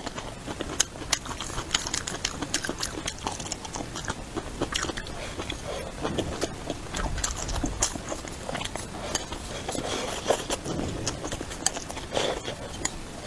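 A person chewing and biting food close to the microphone, with many irregular short clicks and smacks.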